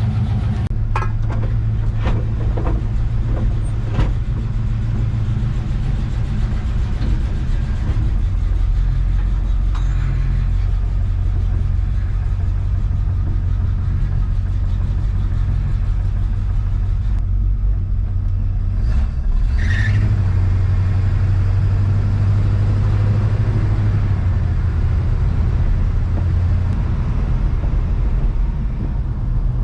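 1970 Chevrolet C10 pickup's engine running steadily as the truck drives off. The drone steps up and down in pitch with changes of speed, rising noticeably about two-thirds of the way in. A few sharp clicks come near the start.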